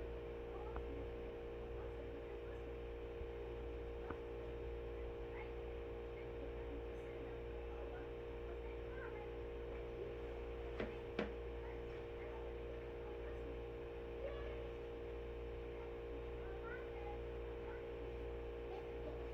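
Steady electrical hum, with two sharp clicks about eleven seconds in and a few faint short chirps in the background.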